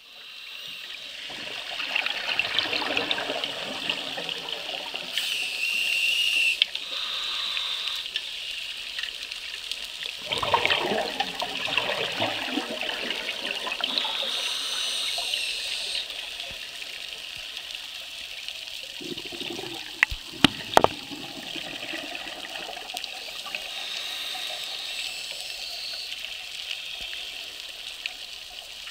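Underwater bubbling and trickling of scuba divers' exhaled air, swelling and easing, with three sharp clicks about twenty seconds in.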